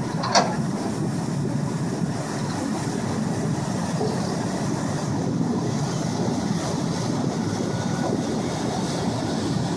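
Steady rush and rumble of a car ferry under way, its engines and churning wake, with wind buffeting the microphone. A brief high chirp sounds just after the start.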